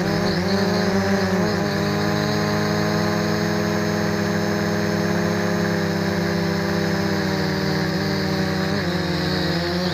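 MJX X400 V2 quadcopter's motors and propellers buzzing in flight. The pitch wavers up and down with throttle changes in the first second or so and again near the end, and holds steady in between.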